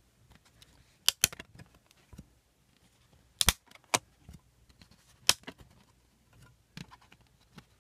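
Sharp plastic clicks and snaps as discs are popped off the clear plastic hubs of a digipack's disc trays and handled. There are several separate clicks, two close together about a second in and others about three and a half and five seconds in, with fainter ones near the end.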